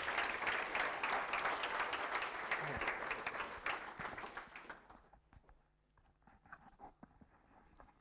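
Audience applauding, a dense patter of hand claps that dies away about five seconds in, leaving only a few faint scattered clicks.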